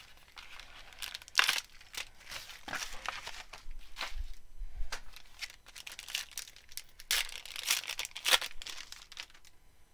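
Foil trading-card pack being torn open and crinkled by hand, in irregular bursts of crackling, loudest about a second and a half in and again in a cluster near the end.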